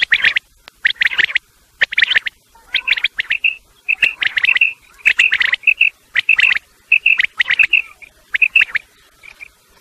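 Common quail calling: short scratchy calls repeating about once a second, joined from about three seconds in by clearer piping notes, fading near the end. A mixed male and female quail call track of the kind played to lure quail for hunting.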